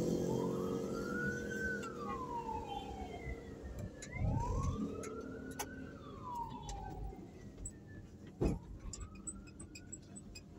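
A siren wailing, its pitch slowly rising and falling about every three and a half seconds, over the low running noise of the moving vehicle carrying the camera. A sharp knock about eight and a half seconds in.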